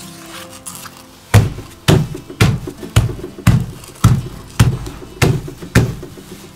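An open hand patting a glued paper cutout flat on a tabletop: nine firm thuds about two a second, starting a little over a second in. Soft background music plays beneath.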